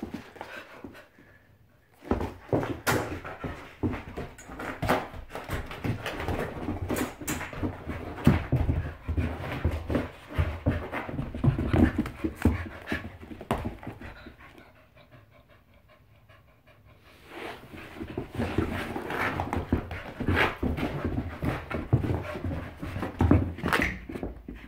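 Boykin Spaniel panting hard close to the microphone during play, mixed with sharp knocks and scuffles, in two long bouts with a pause of a few seconds between them.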